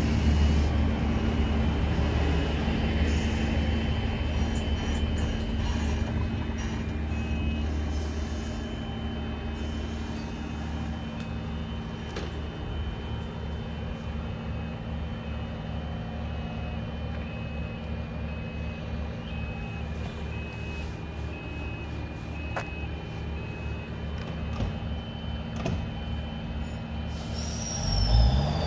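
Diesel train engine running with a steady low drone, and a faint high tone stepping between two close pitches through the middle. Near the end the engine note rises quickly and gets louder.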